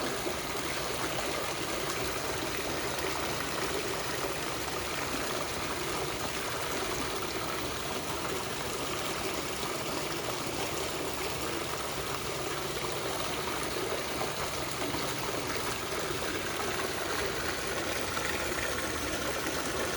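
Water fountain running, a steady trickle and splash of falling water.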